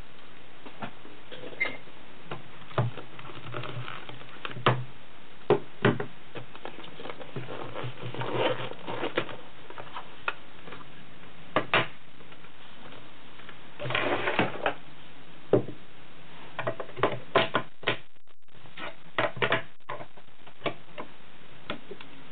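Irregular clicks, taps and rustles of a black leather waist pouch being handled and opened, with a pocket PC phone and a small case taken out and set down on a table. A steady hiss runs underneath.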